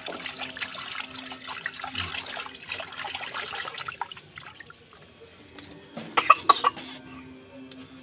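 Water sloshing and splashing in a steel bowl as fish pieces are rubbed and washed by hand in turmeric-salt water, busiest in the first half and quieter after. About six seconds in comes a quick run of short, loud, sharp sounds.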